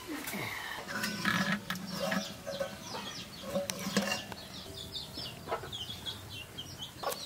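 Chickens calling, in short pitched clucks that turn into a rapid run of short high calls through the second half. Under them come a few light metal clinks as the aluminium pot and its dough-sealed lid are handled and lifted off.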